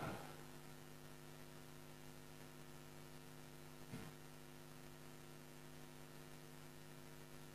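Near silence with a faint steady electrical mains hum, and one faint short sound about four seconds in.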